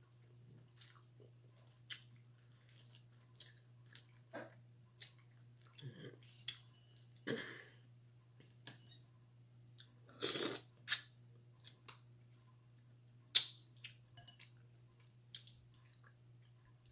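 Close-miked chewing and wet mouth smacks from someone eating boiled mussels and shrimp in butter sauce, with many small scattered clicks. A few louder wet mouth noises come about seven and ten seconds in, over a faint steady low hum.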